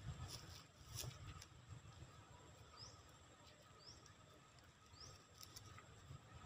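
Near silence: faint outdoor ambience with a steady high thin tone, three short, high rising chirps about a second apart in the second half, and a couple of soft clicks about a second in.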